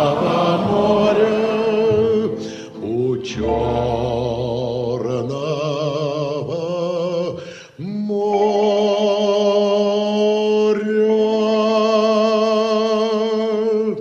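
A male singer with a small dance band finishes a song. He sings two short phrases, then holds the final note with vibrato for about six seconds until the band stops.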